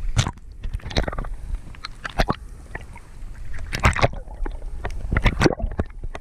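Sound picked up by a camera held underwater: a muffled wash of moving water broken by irregular sharp clicks and knocks, some of them loud.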